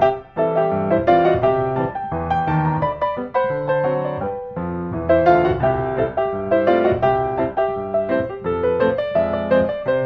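Background piano music: a continuous instrumental track of chords and quick melody notes.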